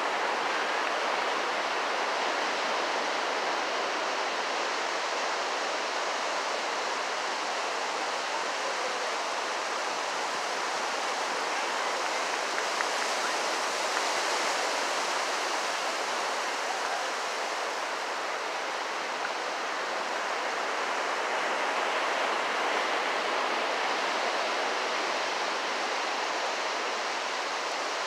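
Ocean surf breaking on a beach: a steady rushing hiss that swells a little twice, around the middle and again later on.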